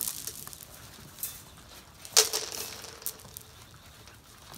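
Briard puppies moving about on concrete: faint scattered pattering and clicking of paws and claws, with a brief louder rustling scuffle about two seconds in that fades over about a second.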